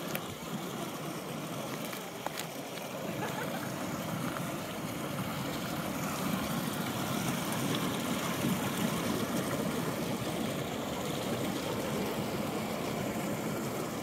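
Steady rushing of a mountain creek's flowing water, growing a little louder about four seconds in.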